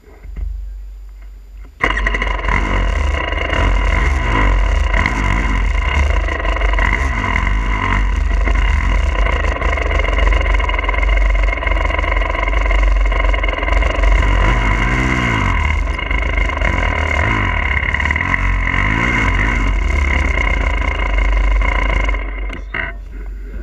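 Two-stroke 300cc enduro dirt bike engine running under way, its revs rising and falling. It comes in suddenly about two seconds in and drops away near the end.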